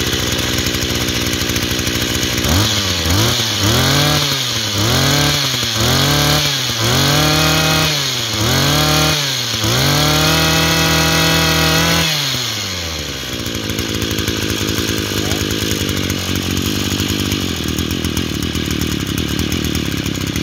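Maruyama 26cc two-stroke brush cutter engine idling, then revved in a series of quick throttle blips. The last blip is held at high revs for about two seconds before the engine drops back to a steady idle.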